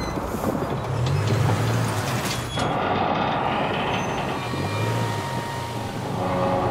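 Land Rover Discovery engine pulling under heavy load at low speed as it hauls a 110-tonne road train, mixed with the rumble of the heavy trailers rolling on the road. The sound changes abruptly about two and a half seconds in.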